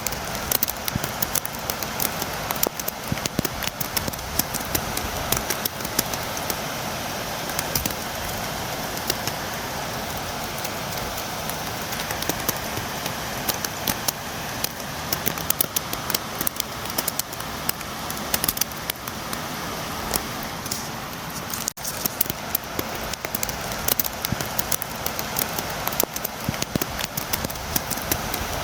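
Steady rain with a dense patter of sharp drops tapping on window glass. There is a momentary break in the sound about three-quarters of the way through.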